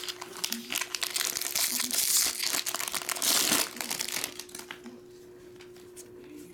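Foil wrapper of a 2024 Topps Series 1 baseball card pack crinkling as it is torn open by hand, loudest about two and three and a half seconds in, stopping after about four and a half seconds as the cards are pulled out.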